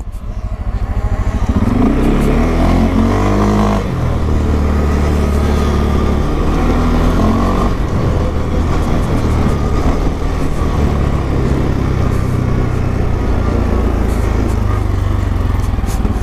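Single-cylinder engine of a CFMoto 520L ATV revving up under load, its pitch climbing over the first few seconds, dipping briefly about four seconds in, then running steadily.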